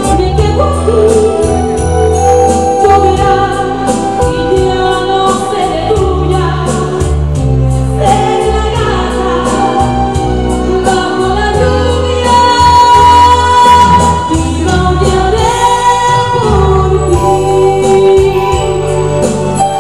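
A woman singing a ballad live into a microphone over instrumental accompaniment with steady bass and keyboard.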